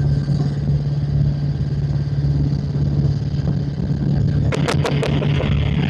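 Helicopter engine and rotor running in a steady drone, heard from inside the cabin during a low buzzing pass. About four and a half seconds in come four sharp clicks in quick succession.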